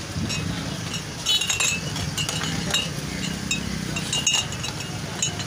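Glass beer-mug-style tumblers clinking against one another as they are handled and set down on a metal counter: a series of short, sharp clinks over steady street noise.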